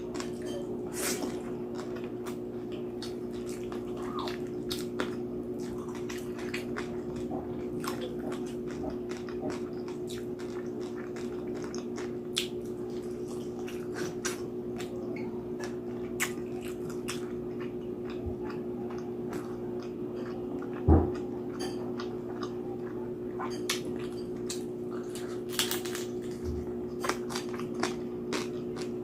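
Close-up eating sounds of crispy lechon pig's head: chewing and biting with scattered crunches and wet clicks, over a steady low hum. A single louder thump comes about two-thirds of the way through.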